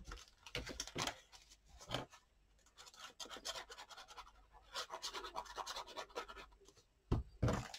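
Pencil scratching short strokes on paper as a mark is made, mixed with paper and card being handled, and two louder knocks near the end.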